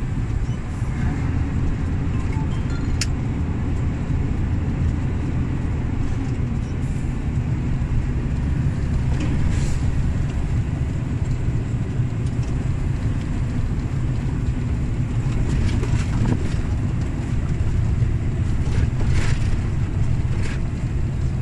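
Steady in-cab drone of a Volvo FH460 truck cruising on the highway: the 13-litre six-cylinder diesel running at a constant pace under the road and tyre noise.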